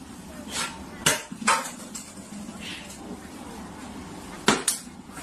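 A few sharp clinks and knocks of hard objects, the loudest two in quick succession near the end.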